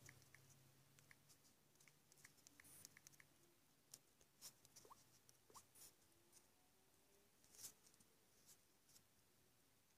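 Near silence, with faint irregular taps and clicks from fingertips tapping on a tablet's touchscreen keyboard.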